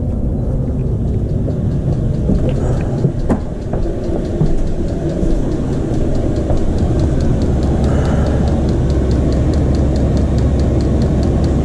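Chinese diesel heater running: a steady low rumble, with an even, rapid ticking joining about halfway through.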